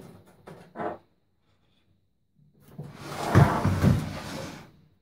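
Samsung CE73J combination microwave being slid and turned round on a worktop: a scraping rumble of about two seconds with a couple of low thumps in the middle. Before it, in the first second, come a few light knocks from work at its back panel.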